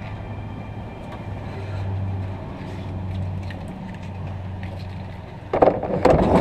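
Steady low mechanical hum. About five and a half seconds in, loud irregular clattering and rustling starts as things are moved about in a metal dumpster.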